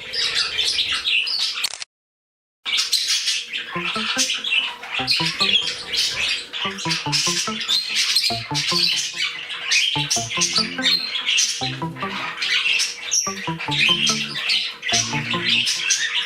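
A mixed flock of small pet parrots, cockatiels, budgies and other parakeets, chattering, chirping and squawking constantly. The sound cuts out briefly about two seconds in, and background music with low notes in a regular beat comes in under the birds soon after.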